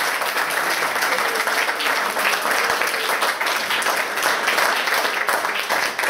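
Audience applauding: many hands clapping at once, steady in loudness.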